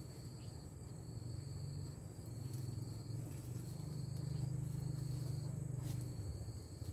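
An insect trilling at one high, steady pitch in stretches of about a second with short breaks, over a steady low rumble.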